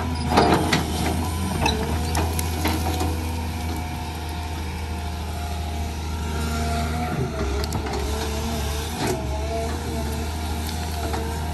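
Caterpillar hydraulic excavator running under load: steady diesel engine with a wavering hydraulic whine as the bucket scrapes through dry grass and brush. A few sharp knocks and crackles come in the first second or so.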